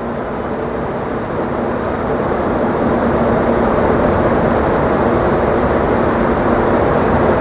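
City street traffic: a steady rumble of passing vehicles with an engine hum in it, growing gradually louder.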